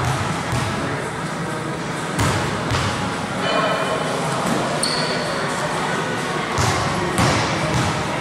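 A basketball thuds a few times on a hardwood gym floor over steady background noise.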